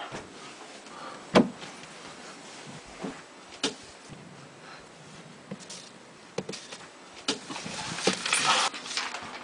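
Scattered sharp knocks and bumps of objects being handled, the loudest about a second and a half in, then a longer rustle near the end.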